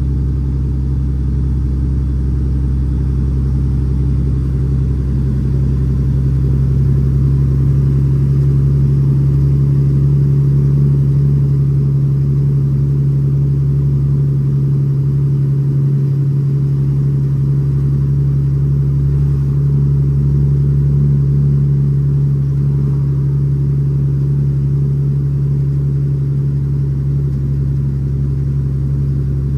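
The Cummins ISX 525 hp straight-six diesel of an International ProStar dump truck, heard from inside the cab, running under load with about 32 tons of gravel aboard. It gives a steady deep drone that swells slightly in the middle.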